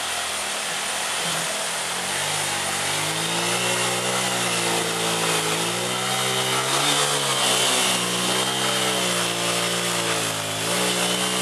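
Motorcycle engine revving up and down repeatedly as the bike struggles through a stream crossing, over the steady rush of flowing water. The revving starts about two seconds in.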